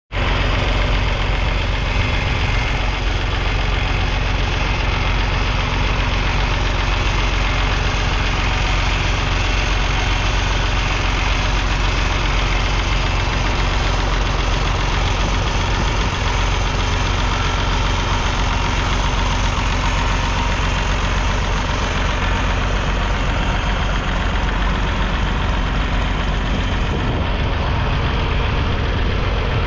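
Massey Ferguson 250 tractor's 2.5-litre three-cylinder diesel engine running steadily.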